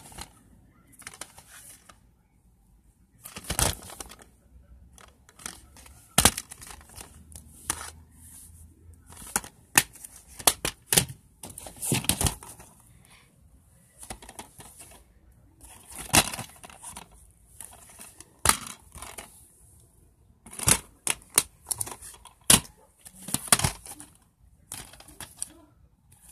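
Plastic DVD cases being picked up and handled: irregular sharp clacks and rustling.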